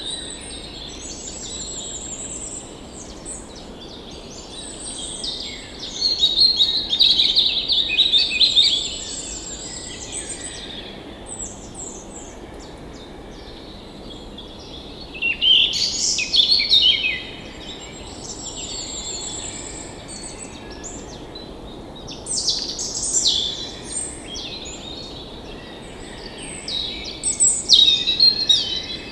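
Songbirds singing: several overlapping warbling and trilling songs, high-pitched, swelling louder in bursts every several seconds, over a steady faint background hiss.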